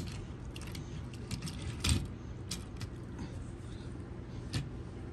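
Light clicks and taps of small toy engines being handled and pushed together on a hard floor. The loudest click comes about two seconds in, over a faint steady hum.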